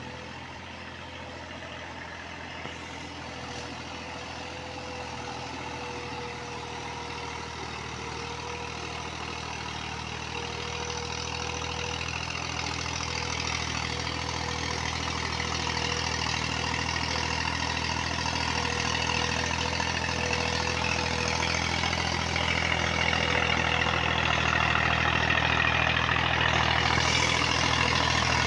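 Massey Ferguson 240 tractor's three-cylinder diesel engine running steadily under load as it drags an implement through flooded paddy mud. It grows steadily louder as the tractor draws closer.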